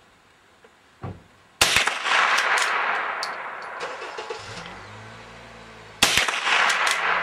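Two shots from a Remington 572 pump-action .22 LR rifle, about four and a half seconds apart, the first about a second and a half in and the second near the end, each followed by a long echo that fades over a few seconds.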